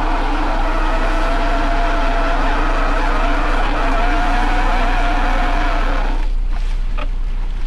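Motor machinery on a crab-fishing boat running with a steady whine over a low rumble; the whine cuts off about six seconds in, leaving the rumble and a few knocks.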